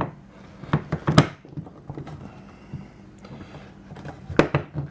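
Clicks and knocks from a broken exterior door handle on a Chevrolet Avalanche being set back into its housing and worked by hand, with a sharp knock about a second in and another near the end.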